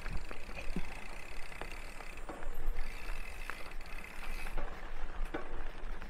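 Mountain bike rolling over a dusty gravel dirt trail: tyres crunching, with scattered clicks and rattles from the bike over a steady low rumble.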